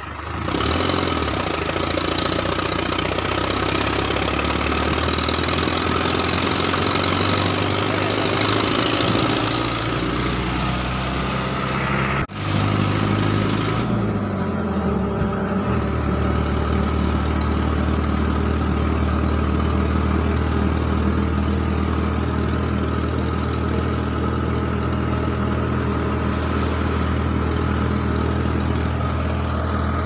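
Truck engine running while the truck drives along a road, a steady low engine note under road and wind noise. The sound breaks off briefly about 12 seconds in, and the engine's pitch shifts soon after.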